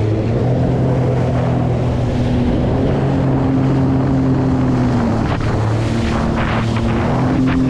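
A motorised watercraft's engine running steadily, its pitch dipping about two thirds of the way through and then rising again as the throttle changes, with wind buffeting the microphone.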